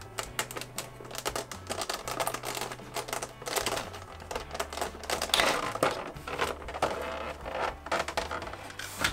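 Rapid plastic clicking and rustling from clipper guard combs and their packaging being opened and handled, loudest about halfway through. A low bass line from background music plays beneath it.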